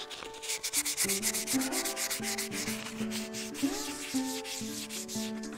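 320-grit sandpaper rubbed by hand over a stone oloid: rapid, continuous back-and-forth scratchy sanding strokes, with background music playing underneath.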